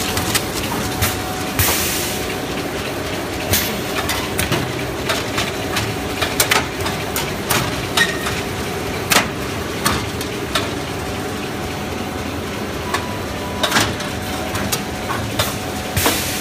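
High-speed T-shirt bag making machine running: a steady mechanical din broken by irregular sharp clacks and knocks.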